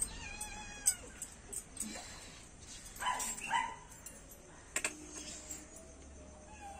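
A dog whining in high, wavering whimpers, with two short cries about three seconds in and a long thin whine near the end. The dog is in discomfort from being held and having its infected, sore skin treated.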